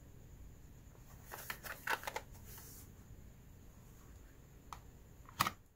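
Plastic-and-cardboard blister pack handled and turned over, crackling and rustling for a second or so, then a light tap and a sharper knock near the end as it meets the table.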